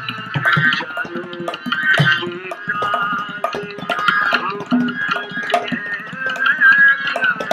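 Tabla played in a steady running rhythm: quick sharp strokes on the dayan with deep, ringing bayan bass strokes now and then.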